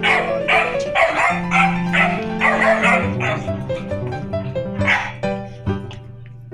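Background music with a steady beat, with dog-like yips and barks among it.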